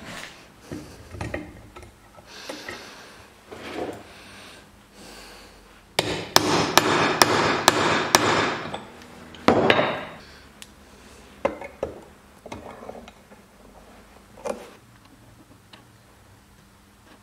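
A hammer strikes a steel drift about seven times in quick succession, about three blows a second, driving a bearing into its bore in a Vespa engine housing. A single louder knock follows a moment later, and lighter knocks and clinks of metal tools come before and after.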